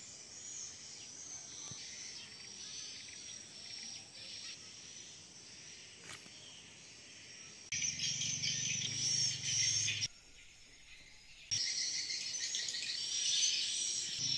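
Tropical insects, crickets or cicadas, chirring in a continuous high-pitched chorus. It grows louder partway through with a low hum beneath, cuts out for about a second and a half near the middle, then comes back strongly.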